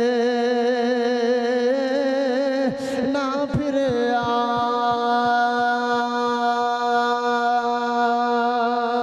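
A man's voice chanting a verse of a religious sermon in long, drawn-out held notes, with a slight waver in the tone. He breaks off for a breath about three seconds in, then holds another long, steady note. A faint regular tapping, about three a second, runs beneath the second note.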